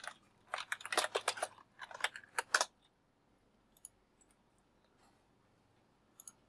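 Computer keyboard typing in two quick runs of keystrokes, then a few faint, isolated mouse clicks.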